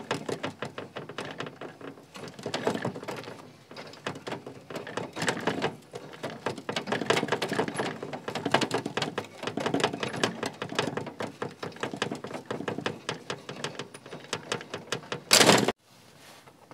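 Hand-operated roller bender working a thin steel flat bar in a vise: dense metallic clicking and clattering from the rollers, lever and strip, in bursts of a second or two as the bar is worked round into a ring. A brief loud clatter near the end, then the noise stops.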